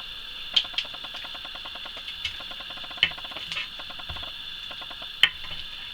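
Small parts being handled: a fast, fine rattle with a few sharp clicks, the loudest near the end, from a small packet of screws. A steady high-pitched whine runs underneath.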